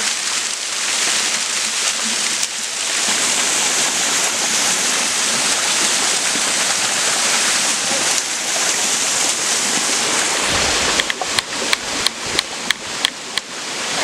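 Waterfall: a steady, dense rush of water pouring down a rock face and splashing below. Near the end a low rumble comes up, and a quick run of about ten sharp clicks follows.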